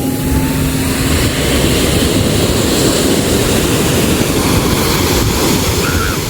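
Sea waves breaking and washing ashore, a continuous wash that swells through the middle and eases near the end, with wind rumbling on the microphone.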